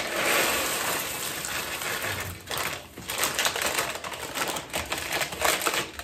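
Plastic snack packets of sunflower seeds crinkling as they are handled and emptied, with the seeds rattling and pouring out into a plastic tub. The rustling is continuous, with a short break about halfway through.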